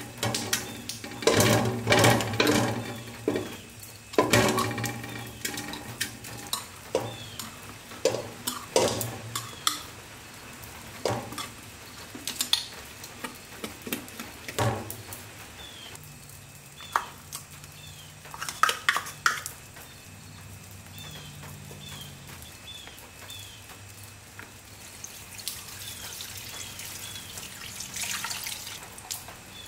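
A metal spoon scraping and clinking against a glass jar and an aluminium pot as thick paste is spooned out, with scattered sharp knocks. Water pours into the pot in the last few seconds.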